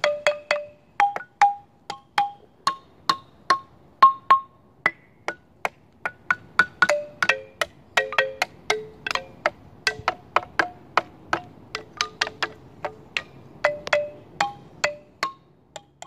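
Outdoor xylophone, the Nature Notes xylophone, struck note by note in an irregular, tuneless run of about two or three notes a second, each a short bright ring that dies quickly. The strikes come a little faster in the middle.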